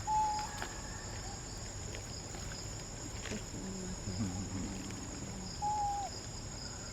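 Steady, high-pitched chorus of crickets or cicadas, with two short whistled calls, one just after the start and one near the end.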